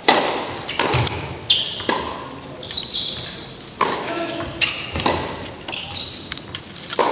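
Tennis serve and rally on an indoor hard court: sharp racket strikes on the ball and ball bounces, about one a second, echoing in a large arena.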